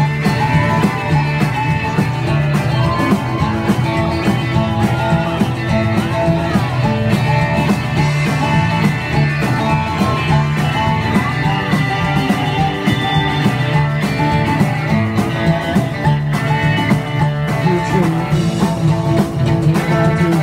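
Live rockabilly band playing an up-tempo song with a steady beat: acoustic guitar, upright bass and drums, with a harmonica played into cupped hands.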